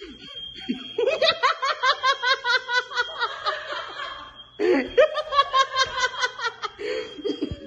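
Two long bouts of quick, high-pitched laughter, the first starting about a second in and the second a little past the middle.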